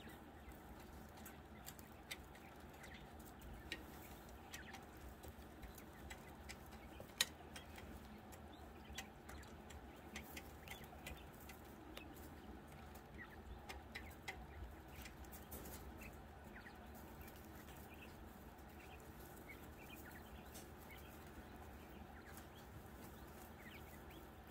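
Jumbo wild-type Coturnix quail, very quiet: soft short chirps and scattered small clicks as they peck and move about, with one sharper click about seven seconds in.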